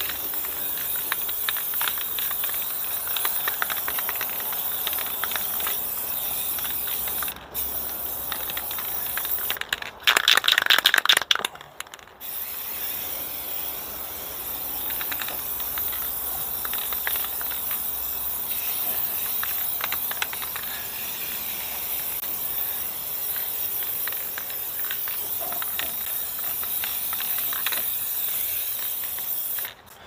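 Aerosol spray paint can spraying in a steady hiss. The hiss breaks off about ten seconds in while the can is shaken, its mixing ball rattling loudly for about two seconds, then spraying resumes.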